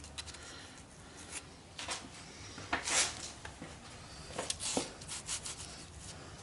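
Scattered short rubs and scrapes of hands handling parts over a low steady hum, the loudest about three seconds in and a cluster of smaller ones near five seconds.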